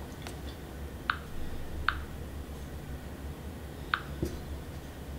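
Three short light clicks as a finger taps the Samsung Galaxy Note 8's touchscreen to open apps: one about a second in, one just under a second later, and one about two seconds after that, over a low steady hum.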